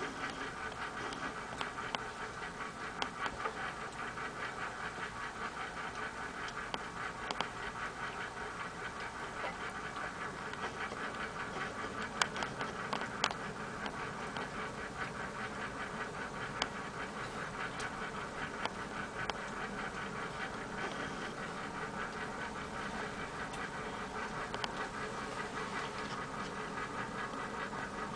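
Domestic cat purring steadily close to the microphone, with a few sharp clicks over it.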